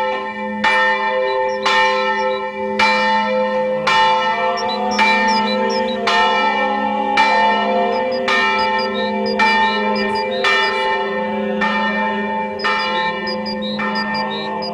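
A church bell tolling, struck about once a second, each stroke ringing on into the next.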